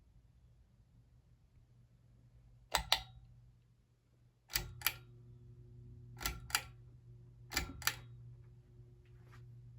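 Ceiling fan pull-chain switch clicked four times, each pull a quick double click. From the second pull on, the Hampton Bay Waterton's motor gives a steady low electrical hum; the owner calls the fan a bit hummy and puts it down to a blade missing a screw.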